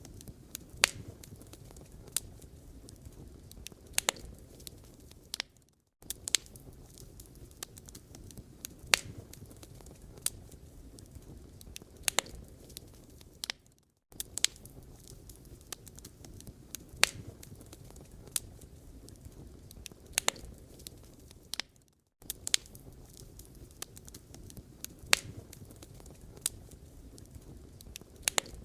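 Wood fire burning in a fireplace: a soft steady hiss of flame under irregular sharp crackles and pops, several a second. The sound cuts out for a split second about every eight seconds.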